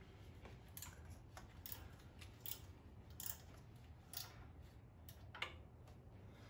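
Faint, irregularly spaced clicks and clinks of hand tools, a ratchet and sockets, working on the intake manifold bolts of a Jeep 2.5L four-cylinder, over a low steady hum.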